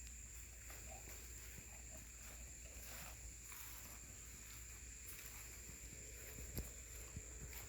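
Quiet outdoor yard ambience: a steady high-pitched hum over a faint low rumble, with scattered soft taps and rustles and one sharper knock about six and a half seconds in.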